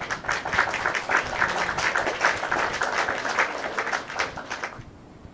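Applause from a crowd of many people clapping, which fades away near the end.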